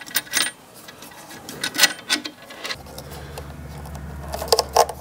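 Scattered clicks and knocks from parts being handled, then a steady low hum that starts a little past halfway.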